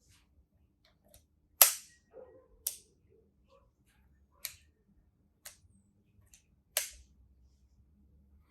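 Sharp mechanical clicks from a Voigtländer Bessamatic 35mm SLR being worked by hand as its controls are tried, about five in all, the loudest about a second and a half in, with faint handling rustle between.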